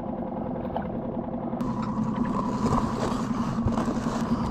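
A boat's outboard motor running steadily at an even pitch, with a few light knocks of handling on the boat.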